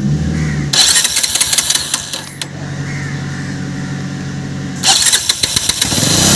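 Bajaj Avenger 200's single-cylinder engine just started and running: revved up, settling to a steady idle for a couple of seconds, then revved again near the end. It runs without the popping 'fat-fut' misfire and surging it had before a matching original CDI unit was fitted.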